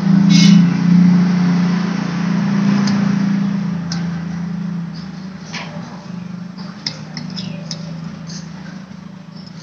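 A low, steady engine hum, loudest in the first second or two and fading gradually, like a motor vehicle passing and going away. A sharp click about half a second in and a few faint ticks later on.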